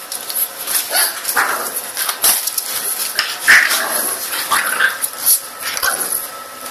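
Two dogs play-fighting on a tiled floor, giving short barks and yips several times over a scatter of sharp clicks and scuffles.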